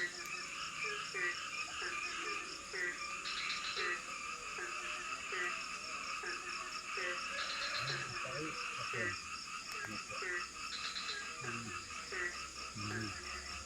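Forest night chorus of frogs calling over one another, short croaking calls repeating about once a second, over a steady high insect drone.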